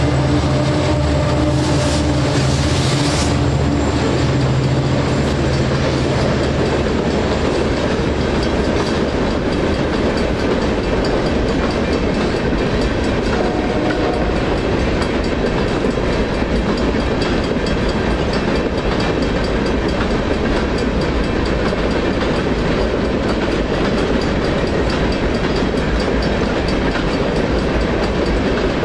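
Freight train passing. The trailing EMD SD59MX diesel locomotives run past with a steady engine drone for the first several seconds. Then the freight cars roll by with a continuous wheel rumble and clickety-clack over the rails.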